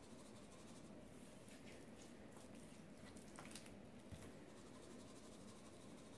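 Near silence with faint soft handling noises from hands rubbing seasoning into a raw beef roast and flipping it on a wooden cutting board. A few light taps come around the middle.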